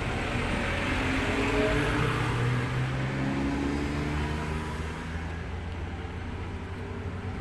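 Mitsubishi Fuso Fighter's 6M61 inline-six diesel engine running, revving up slightly a second or two in and then easing back down toward idle.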